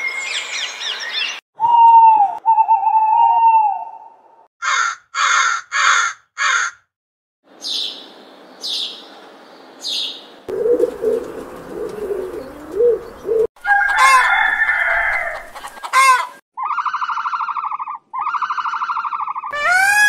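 A run of short recorded bird calls cut one after another: parrots squawking and calling, then sparrows chirping. Each clip has its own repeated calls, and there are abrupt cuts between them.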